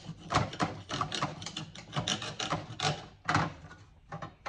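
Fabric being scraped off a painted aluminium equalizer panel: a run of short rasping strokes, about three a second.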